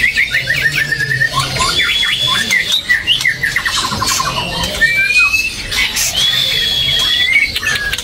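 Male white-rumped shama (murai batu) singing: a varied run of whistles, quick repeated notes and chattering trills, with two long, level high whistles.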